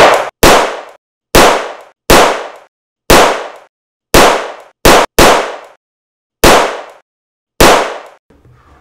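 A volley of gunshots from revolvers and a shotgun: about ten single shots at uneven gaps of roughly a second, each ringing out briefly, with two close together about five seconds in.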